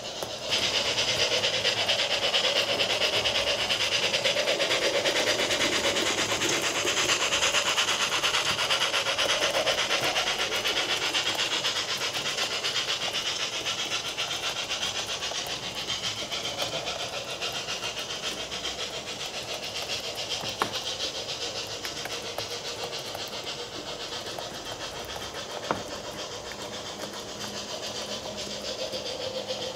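HO scale model train running on its track, a steady high whirring from its electric motor and wheels. It gets suddenly louder about half a second in and eases off gradually after the middle, with two sharp clicks a few seconds apart in the second half.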